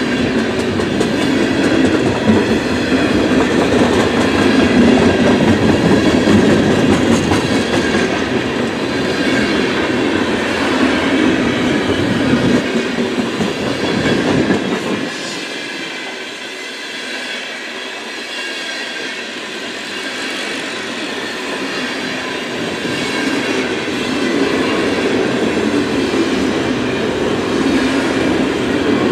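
Freight cars of a long manifest train rolling past, steel wheels clattering over the rails. The sound eases off about halfway through, then builds back up.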